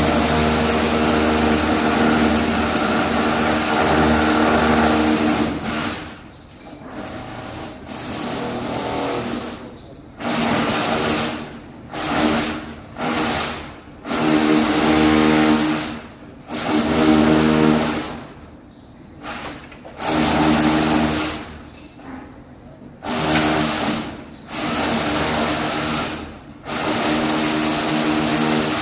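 Construction power drill running in repeated bursts, a steady motor whine that starts and stops about nine times. The first run is the longest, about six seconds; the later ones last one to two seconds each.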